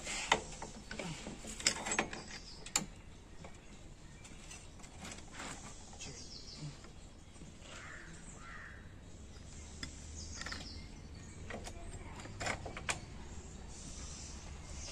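Scattered metal clinks and knocks of hand tools at a motorcycle's rear wheel hub, most of them in the first three seconds and a couple more near the end. Two short crow caws about eight seconds in.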